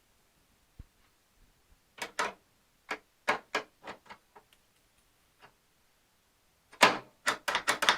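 A string of sharp clicks and knocks from tools and parts being handled, ending in a quick run of louder rattling knocks near the end.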